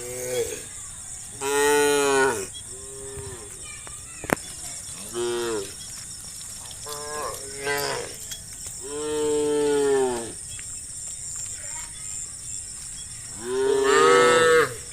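Cows in a herd mooing again and again, about eight calls that rise and fall in pitch, each half a second to a second long. The loudest calls come at about two seconds in and near the end.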